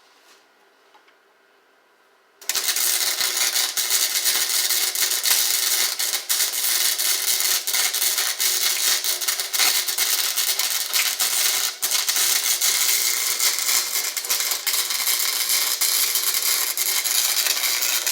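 Near silence for about two and a half seconds, then an electric welding arc strikes and crackles steadily: a dense, fast sputter while a bead is laid on steel horseshoes.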